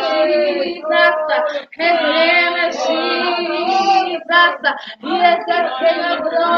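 A woman's voice singing a worship song, with held notes and short breaks between phrases.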